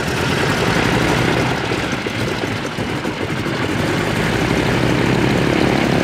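Air Tractor 802's turboprop engine starting up and running steadily as the propeller spins up, with smoke blowing from the exhaust.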